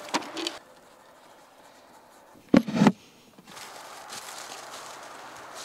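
A pencil scratching and tapping on a clipboard register sheet, then two loud thumps close together about two and a half seconds in. After that come footsteps shuffling through dry fallen leaves.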